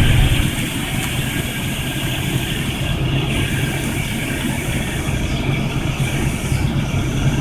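1997 Mercury Grand Marquis's 4.6-litre V8 idling with a steady low hum.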